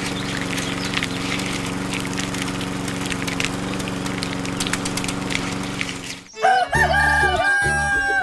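Chickens clucking over a steady low hum, with short high calls scattered through it; about six seconds in this gives way to music with a melody and a regular beat.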